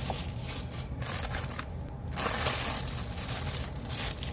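Clear plastic packaging bags crinkling and rustling as easel parts are handled and unwrapped, with a brief lull about two seconds in.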